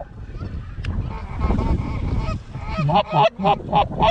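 Canada geese honking in a quick run of short, loud calls that come in about two-thirds of the way through, over wind buffeting the microphone.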